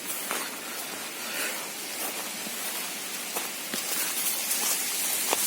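Steady outdoor hiss with a few faint, scattered clicks and crackles.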